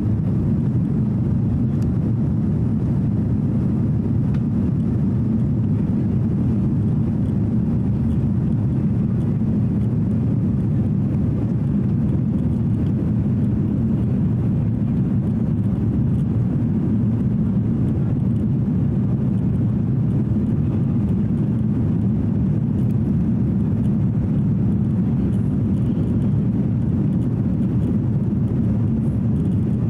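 Inside the cabin of an Airbus A330-300 in its climb after takeoff: a steady, unchanging low rushing noise of its Rolls-Royce Trent 700 engines and the airflow over the fuselage.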